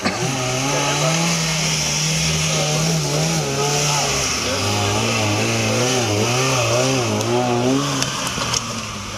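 Off-road competition vehicle's engine running hard under load. Its pitch holds steady, then drops about three and a half seconds in and wavers up and down as the revs rise and fall, with a hiss over it.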